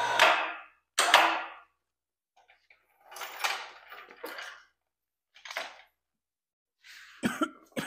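Electric hoist motor running briefly while lifting an engine, stopping about half a second in and running again in a short burst about a second in. Then scattered knocks and clunks of metal being handled.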